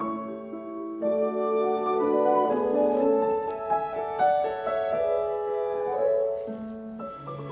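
Background instrumental music with piano carrying the melody.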